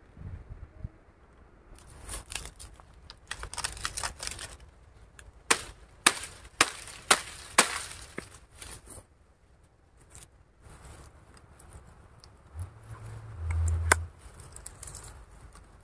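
Rustling, then a run of five sharp knocks about half a second apart, followed by scattered lighter clicks.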